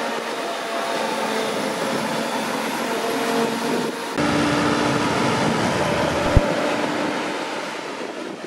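Claas Jaguar 950 self-propelled forage harvester running, picking up and chopping grass for silage: a steady machine drone with a hum of several steady tones. The sound shifts abruptly about four seconds in, and a single sharp click comes a couple of seconds later.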